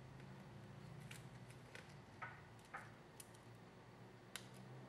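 Near silence over a low steady hum, with about half a dozen faint, short clicks and taps from small tools and a multimeter probe being handled on a phone-repair bench.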